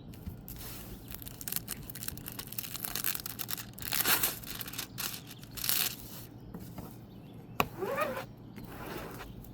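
Rustling and crinkling of a diamond painting canvas and its plastic packaging being unwrapped and handled, in a few louder bursts about four and six seconds in, with a sharp click a couple of seconds before the end.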